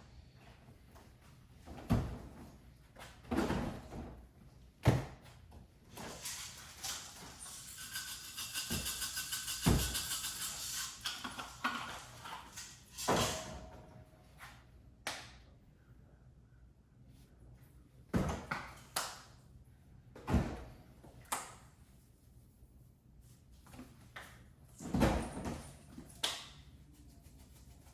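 Kitchen clatter during cooking: a string of separate knocks and thuds from cookware and cupboard doors, with a few seconds of steady hiss about seven seconds in.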